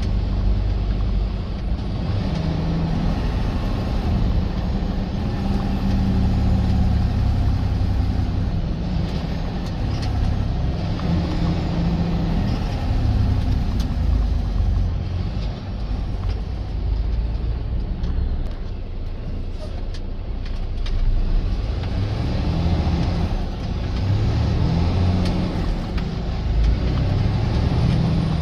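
Semi truck engine running with road noise: a steady low rumble that swells and eases several times.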